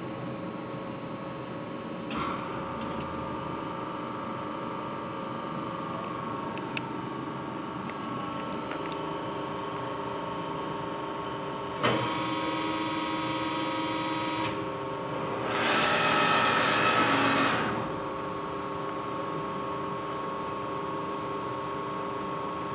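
LVD PPEB hydraulic CNC press brake running: a steady electric hum with several whining tones. There is a click about two seconds in and another near twelve seconds, followed by a higher whine for a couple of seconds, then a louder hiss for about two seconds.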